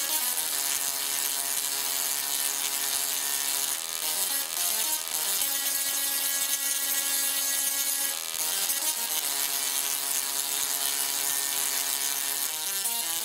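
OneTesla singing Tesla coil playing a tune with its spark discharges: held pitched notes that change every second or few, with a hiss over them. The notes come faster near the end.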